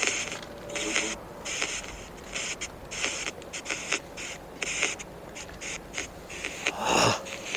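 Chopped bursts of static from a phone spirit-box app, hissing on and off every half second to a second, with a brief voice-like sound about seven seconds in.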